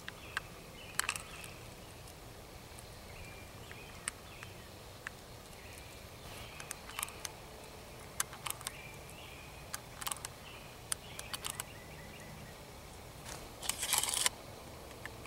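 Faint clicks and taps of a Browning SA-22 .22 rifle being handled, with a louder scraping rattle near the end as the tubular magazine's inner tube is drawn out of the buttstock.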